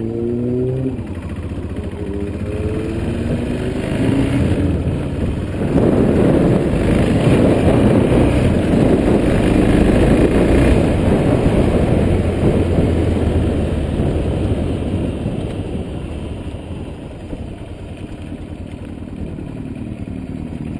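Yamaha XT660X's single-cylinder engine pulling away, its pitch rising through the first gears with a break at a gear change. About six seconds in, heavy wind rush over the handlebar-mounted microphone takes over at speed, then eases off as the bike slows toward the end.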